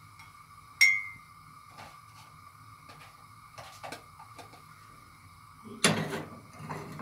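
Kitchen handling of a ceramic coffee mug and utensils: one sharp clink with a short ringing note about a second in, a few light taps and clicks, then a louder clatter near the end as the mug on its saucer is set down. A faint steady high whine runs underneath.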